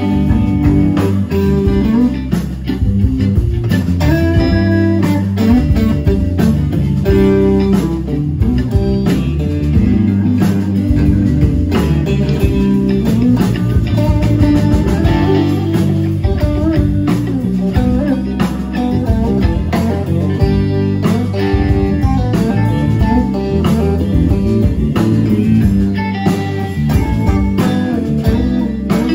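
Live blues band playing an instrumental passage without vocals: electric guitars over electric bass and a drum kit, at a steady, full level.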